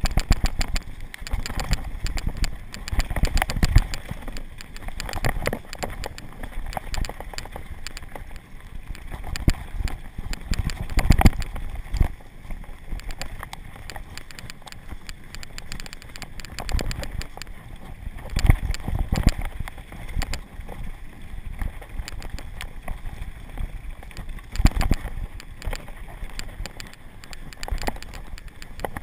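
Mountain bike rattling down a dusty dirt trail: tyres rolling over dirt and stones with a constant clatter of the bike, and heavier thumps from bumps four or five times.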